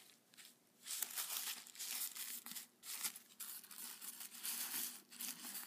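Plastic wrapper of a sanitary pad crinkling and rustling as it is handled and pulled open, in irregular rustles starting about half a second in.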